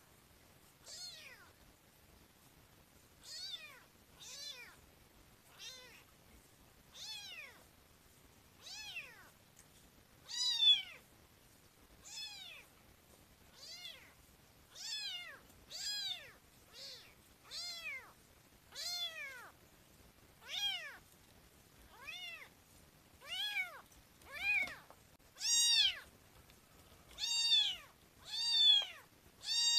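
A tiny ginger kitten mewing over and over, about one call every second or so; each high mew rises and then falls in pitch. The calls grow louder in the last third.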